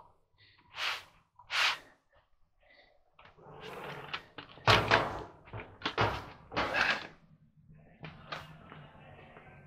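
A door being opened and shut, with a series of knocks and thumps. The loudest thump comes about five seconds in.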